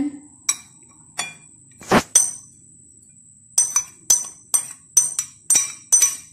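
Sharp ringing clinks of metal against a glass mixing bowl as minced boiled chicken is tipped and knocked out into it. There are a few spaced clinks at first, then a quicker run of them from about halfway.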